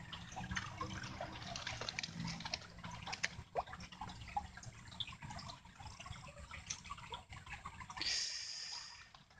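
Muddy water sloshing, dripping and trickling in small splashes as a hand and arm work down into a flooded eel hole, with a longer, louder splash near the end.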